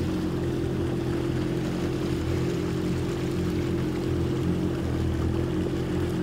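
Personal watercraft engine running at a steady speed: a constant drone with an even hiss over it.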